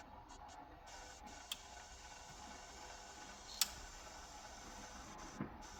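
Faint hiss and crackle from a record playing through a tube amplifier before the music starts, with three sharp pops spaced a couple of seconds apart.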